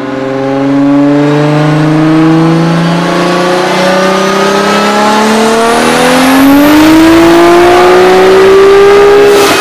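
Turbocharged Toyota 2JZ inline-six running a full-throttle pull on a chassis dyno, its pitch climbing steadily through the rev range. A faint high whine climbs along with it.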